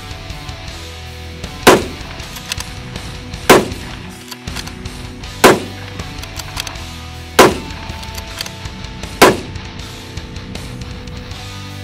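Five rifle shots, about two seconds apart, from a Howa Mini Action bolt-action chassis rifle, over background music.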